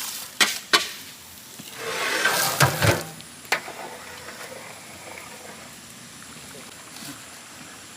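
Rock salt being added to a large cooking pot: two knocks, then a rush of salt tipped in about two seconds in, one more knock, and afterwards a faint steady hiss from the pot.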